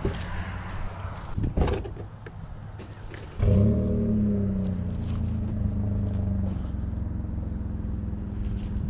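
Pickup truck's engine starting up about three seconds in with a brief flare, then settling into a steady idle. A couple of short knocks come just before it.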